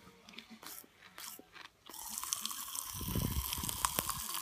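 Pop Rocks popping candy crackling in an open mouth: a dense run of tiny sharp pops and fizz that starts about two seconds in, after a few faint mouth clicks.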